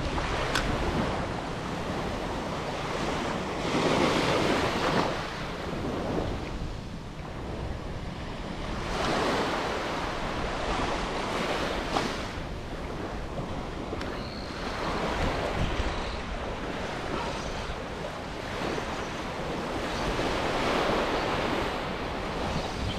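Small waves washing in on a sandy beach, each wash swelling and fading about every five seconds, with wind rumbling on the microphone.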